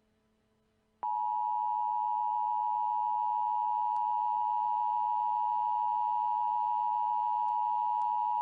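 Emergency Alert System attention signal: a steady two-note electronic tone that starts about a second in and holds unchanged, announcing an emergency broadcast.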